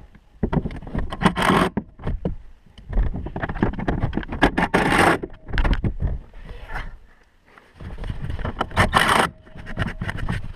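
Irregular scraping and rustling with small clicks and knocks: hands working seat-belt hardware and bolts into the roof behind the pulled-down headliner.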